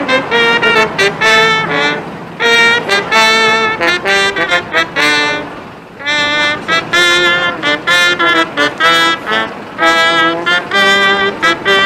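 Brass band music: trumpets and trombones playing a melody in short phrases.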